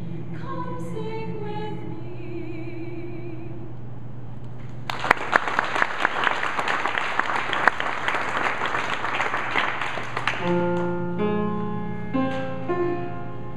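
A mixed vocal quartet singing held notes, then a brief pause and about five seconds of clapping and applause from a small audience; about ten seconds in, the quartet begins singing again with sustained chords.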